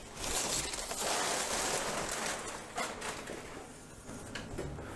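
A cross-guard longsword being handled and drawn out of its leather sheath: a rustling, sliding noise for about two seconds that then fades, with a few faint knocks later on.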